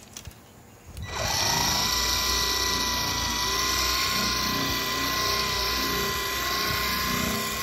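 Ryobi cordless dual-action polisher switched on about a second in, spinning up with a short rising whine and then running steadily with a high motor whine.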